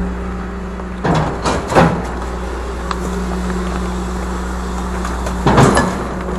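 Garbage compactor truck's engine running steadily at idle. Around one to two seconds in, and again near the end, plastic trash bags land and rustle in the rear hopper in short bursts.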